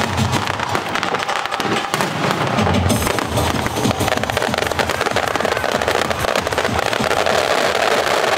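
Fireworks display: aerial shells bursting and crackling stars popping in a dense, unbroken run.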